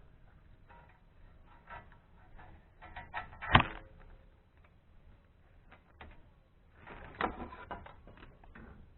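Metal tools and brake parts clinking and knocking during rear brake pad work on a car: scattered light clicks, one sharp ringing metal knock about three and a half seconds in, and a cluster of knocks around seven seconds.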